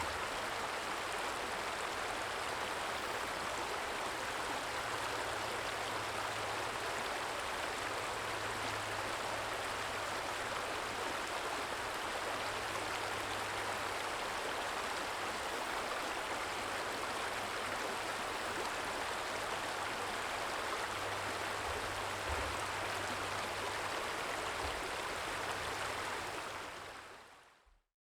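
Small stream trickling and flowing steadily over its bed, fading out near the end.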